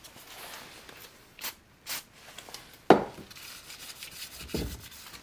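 Cloth rubbing over a chainsaw crankcase's sealing surface, wiping off oil, with two short hisses about a second and a half in and a sharp click near the three-second mark.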